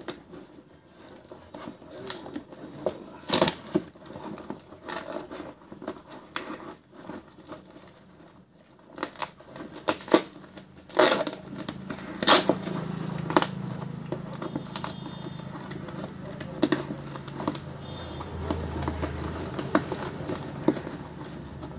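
A cardboard parcel sealed with packing tape being torn open by hand: a series of sharp rips of tape and cardboard with crinkling of packaging between them. A low steady hum joins about halfway through.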